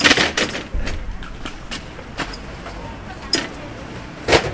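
Clanks and knocks of rusty steel folding stall frames being handled and set down on pavement. There are several sharp metallic impacts, the loudest right at the start and another near the end.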